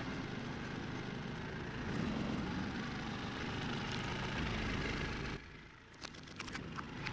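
Truck engine running as the truck creeps forward and its tyre rolls onto plastic toys on a rubber mat. The engine noise drops away suddenly a little past five seconds, leaving a few sharp cracks as the tyre presses on the toys.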